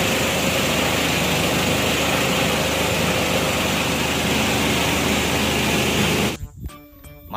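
Water tanker truck's engine running steadily, a loud, dense rumble with a noisy hiss over it, which cuts off abruptly about six seconds in.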